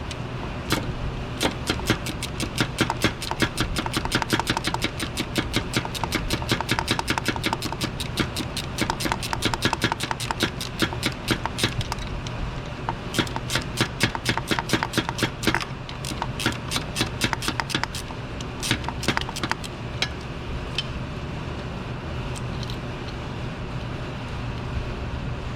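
Hand ratchet clicking in rapid runs as a 10mm bolt holding an engine ground wire is backed out, stopping a few seconds before the end.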